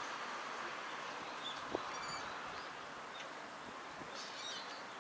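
Open-air ambience: a steady wash of wind and distant background noise, with a few faint, short bird chirps now and then and a small click a little under two seconds in.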